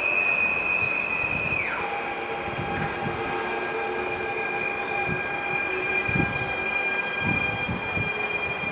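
PKP Intercity ED160 Stadler Flirt electric multiple unit pulling into the platform as it slows: a high whine drops sharply in pitch about two seconds in and then holds steady, over the rumble of the train on the track.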